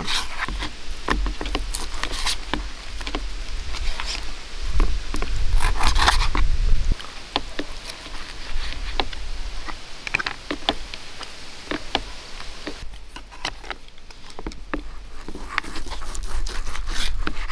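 Forks clicking and scraping on plastic plates while eating, in scattered irregular strokes. A low wind rumble on the microphone swells for a couple of seconds around five seconds in.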